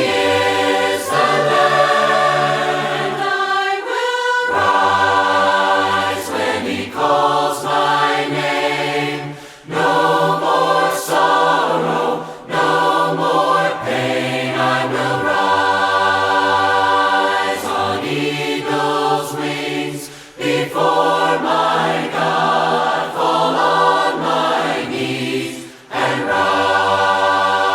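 Choir singing a hymn in close harmony, with long held chords that change every few seconds and brief breaths between phrases.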